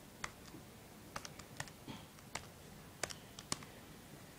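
Calculator keys pressed one after another: faint, irregularly spaced clicks as answers are tapped in.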